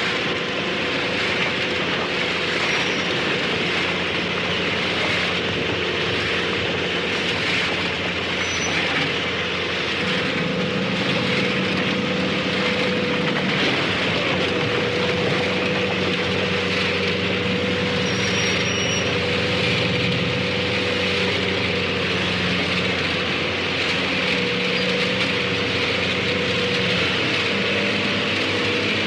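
Harvester working crops: a steady engine drone with several held pitches under a dense, even mechanical noise from the cutting and threshing machinery.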